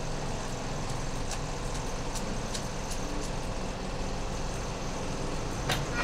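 Steady background rumble like road traffic, with a few faint clicks, the clearest one near the end.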